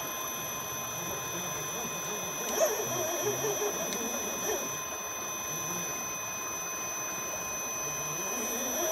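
Brushless 950KV motor of an RC rock crawler giving a steady high-pitched whine of several fixed tones, with a few brief louder sounds about two and a half to four and a half seconds in.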